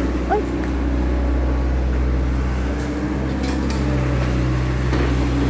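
Kobelco compact tracked excavator's diesel engine running steadily, with a few faint knocks. The engine note strengthens a little about four seconds in as the machine works.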